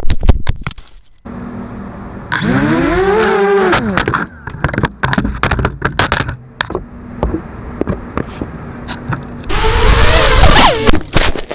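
FPV racing quadcopter crashing: sharp knocks and clattering of impacts, with the motors' whine cutting in, rising and falling in pitch a few seconds in and again loudly near the end.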